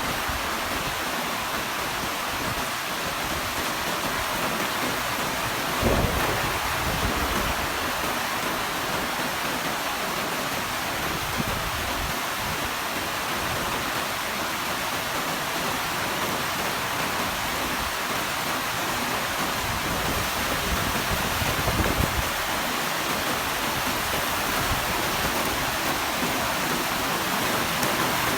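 Heavy rain pouring steadily, a dense even hiss. Two brief low thumps break through, about six seconds in and again around twenty-two seconds.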